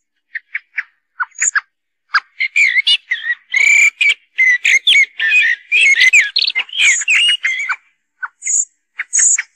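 Eurasian blackbird calls played as a hunting lure: short sharp chips and brief high squeaky notes, with a run of fluty warbling song through the middle.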